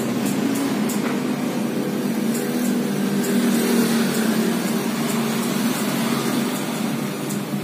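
A machine running with a steady hum, with a few faint light ticks.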